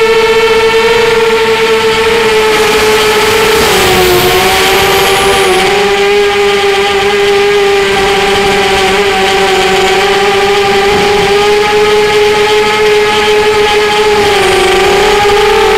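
Strider Flex 250 quadcopter's electric motors and propellers whining loudly and steadily, heard from the quad's onboard camera. The pitch drops about four seconds in, holds lower, and climbs back near the end.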